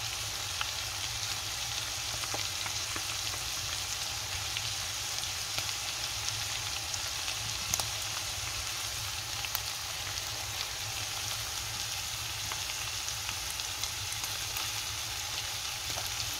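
Beef liver, onion and tomato wedges sizzling steadily in their sauce in a frying pan, with scattered small pops.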